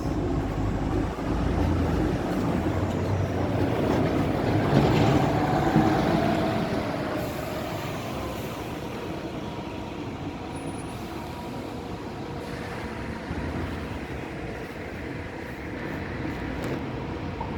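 Road traffic: a vehicle passes, its rumbling noise swelling to a peak about five seconds in and then fading to a steady background hum.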